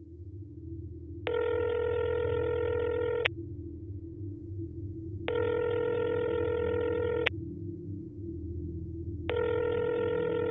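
Telephone ringback tone heard through the caller's phone, a call ringing out unanswered: three two-second rings spaced about four seconds apart, the last cut short. A low steady drone sits under the rings.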